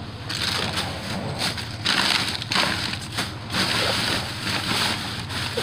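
Plastic trash bags and packaging rustling and crinkling as they are pulled about and dug through by hand, in irregular surges, over a steady low hum.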